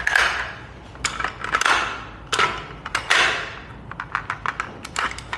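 Diamondback DB15 AR-15 rifle being handled during inspection: several short scraping slides, then a run of light metal clicks near the end.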